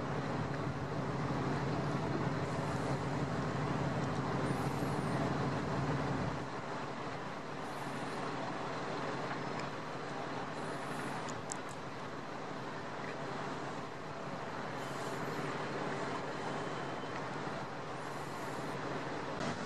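Road traffic and heavy vehicle engines running steadily, with a strong low engine drone for the first six seconds that drops away suddenly, leaving a fainter steady traffic hum.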